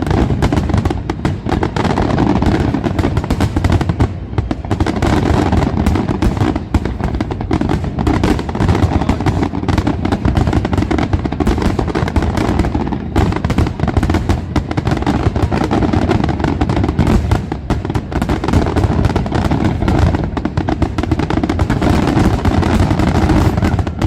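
Aerial fireworks display going off in a dense, unbroken barrage of bangs and crackling, loud throughout.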